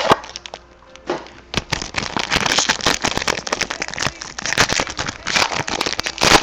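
Dense, irregular crackling and crinkling of trading-card packaging being handled and opened, most likely the wrapper and cardboard of the next mini box of cards. It starts about a second in.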